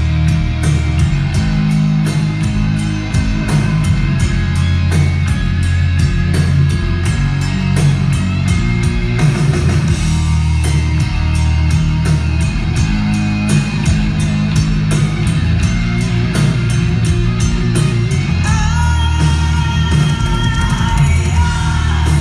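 Live pop-rock band playing an instrumental break between choruses of the song, with guitar over bass and drum kit, at a steady loud level.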